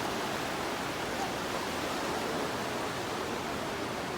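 Steady rushing of a river in full flood, its swollen water making an even roar-like hiss with no breaks.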